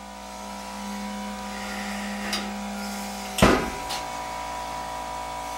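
Steady hum of an air compressor running while it pushes air through the irrigation lines to blow them out for winter. There is one sharp knock about three and a half seconds in.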